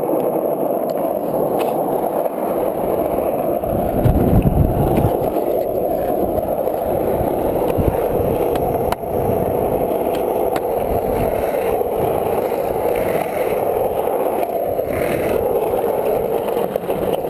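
Skateboard wheels rolling steadily over asphalt and concrete, with a few faint clicks over cracks and joints. A louder low rumble comes about four seconds in.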